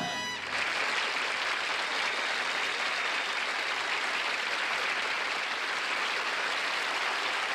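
The last held chord of the song cuts off just after the start, then an audience applauds steadily.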